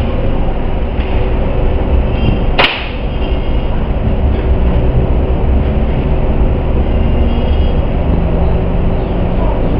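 A single sharp crack about two and a half seconds in, a shot from a homemade air rifle, over a steady low rumble like wind buffeting the microphone.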